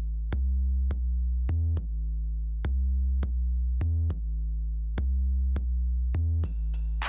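Electronic background music with a steady drum-machine beat over a deep synth bass line, with a short noisy swish near the end.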